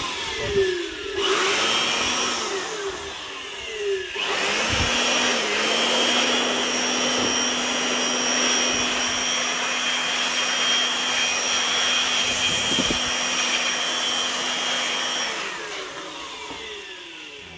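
Handheld air blower running steadily, blowing air over a graphics card's circuit board to dry off cleaning petrol. Its rush of air carries a steady motor whine. It dips briefly about four seconds in and winds down near the end.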